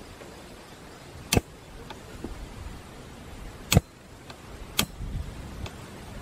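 A few sharp clicks and knocks as metal cookware is handled: a hot sandwich maker pan on a camp gas stove and metal cutlery. The loudest knock comes about halfway through, with a steady low hiss underneath.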